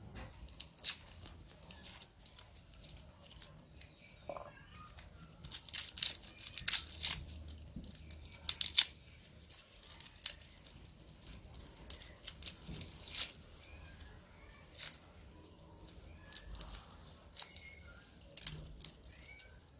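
Dry, papery garlic skins crackling and tearing as cloves are peeled by hand and pared with a knife blade. The sound comes as scattered sharp crackles, thickest a few seconds in.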